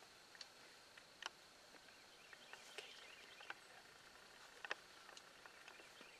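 Near silence: a faint steady background hiss with a few soft, scattered clicks and ticks.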